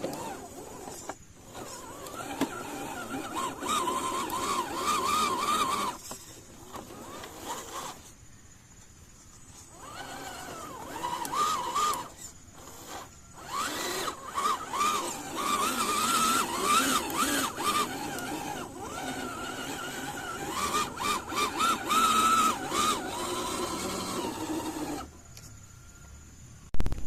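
Electric motor and gear train of a 1/10 scale RC pickup crawler whining in bursts, the pitch wavering up and down with the throttle, with short pauses between runs. A sharp click comes just before the end.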